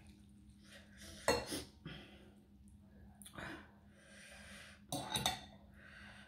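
Metal fork and spoon clinking and scraping against a ceramic plate while lifting and pulling apart rice noodles: a few separate sharp clinks, the loudest about a second in and a quick pair near five seconds.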